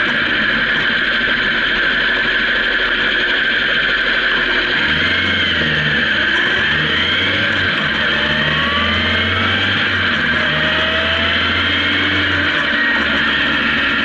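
Honda CB750K motorcycle's air-cooled inline-four engine running on the move, under a steady rush of wind and road noise. Its pitch rises during the middle, with a few shifts in engine note.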